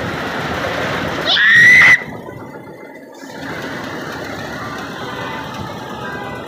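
Steady fairground din with a short, loud rising shriek about a second and a half in.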